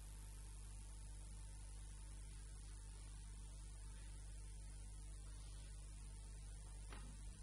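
Steady electrical mains hum with a low buzz and hiss underneath.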